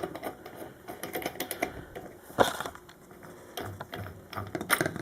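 Irregular light clicks and taps of parts being handled on a ceiling fan's light fitting, with one sharper click about two and a half seconds in.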